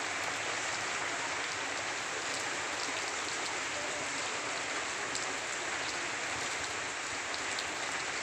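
Rain falling steadily on trees and leaves: an even hiss with scattered sharp drop ticks.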